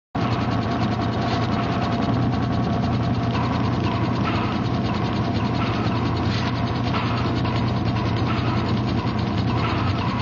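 Steady, rapid mechanical clicking over a low hum, starting abruptly.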